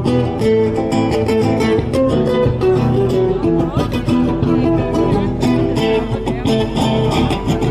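Guitar-led band music played live in the street, with strummed acoustic guitar and a steady beat.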